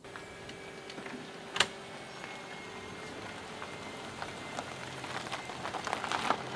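Car rolling slowly out of a garage on wet cobblestones, its tyres crackling and popping over grit and slush, with a faint steady whine and one sharp click about one and a half seconds in; the crackling grows toward the end.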